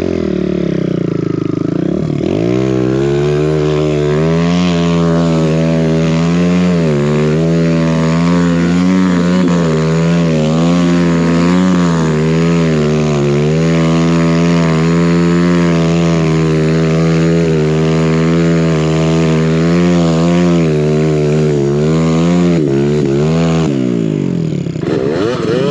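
Single-cylinder four-stroke engine of a big-bore Kawasaki KLX170RF dirt bike with a BBR D3 exhaust, held at high revs as it pushes through deep powder snow. The pitch wavers up and down all the way through. Near the end the revs fall off briefly, then pick up again.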